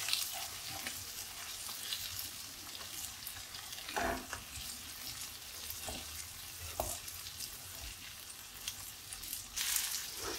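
Masala-coated sardines sizzling and crackling in shallow oil in a nonstick frying pan over low heat, both sides nearly cooked. A few light knocks of a spatula against the pan come around four and seven seconds in, and the crackle gets busier near the end.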